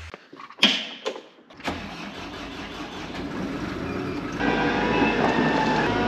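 A couple of sharp clicks and a knock, then a Bobcat telehandler's diesel engine starting and running steadily, heard from inside the cab; its level steps up about four seconds in.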